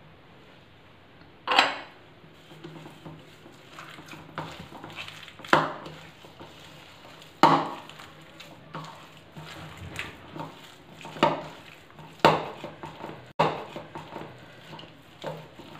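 Minced-mutton kebab mixture being kneaded by hand in a bowl, with about nine sharp knocks and clinks of the bowl coming irregularly, one every second or two.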